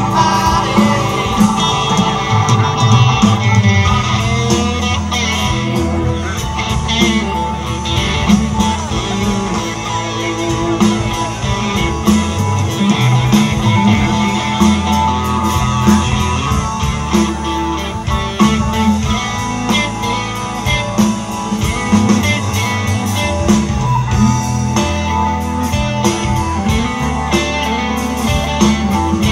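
Live rock band playing electric guitar, bass guitar and drums, with keyboard.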